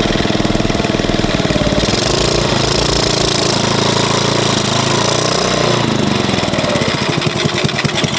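Small mini-motorcycle engine running with no air filter fitted while its carburettor is adjusted with a screwdriver. The engine speed changes about two seconds in, rises and falls again around the middle, then settles to a steady idle as the idle speed is being set lower.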